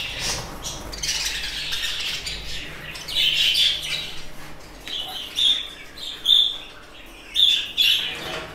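A flock of budgerigars chirping and chattering, with short, sharp calls coming quickly one after another in the second half.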